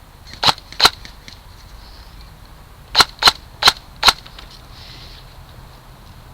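Airsoft gun firing single shots with sharp cracks: two shots in quick succession, then four more in a quick run a couple of seconds later.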